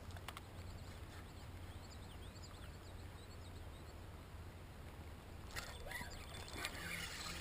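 Quiet outdoor ambience on the water: a faint steady low hum, with faint high bird chirps in the first half and a few light clicks and rustles near the end.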